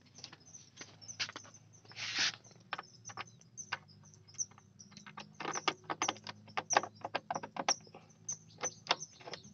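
A freshly cut duplicate key being inserted, jiggled and turned in a Honda Revo Fit motorcycle's lock beside the rear wheel: a run of light metallic clicks and scrapes, with one brief louder scrape about two seconds in and busier clicking from about halfway on.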